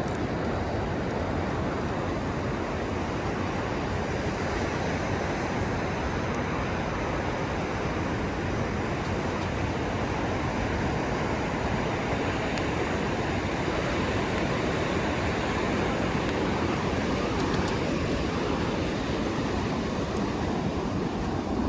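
Steady, even rush of ocean surf and wind.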